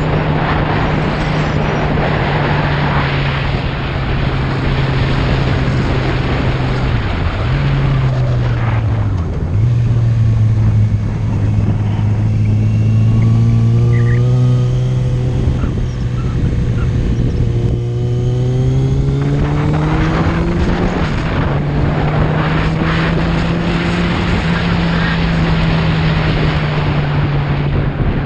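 Motorcycle engine running under way, its note wavering with the throttle, with wind rushing over the microphone. The note dips and recovers twice about a third of the way in and once more about two-thirds in, as at gear changes. In the middle stretch the engine pulls at lower speed with less wind, then climbs again.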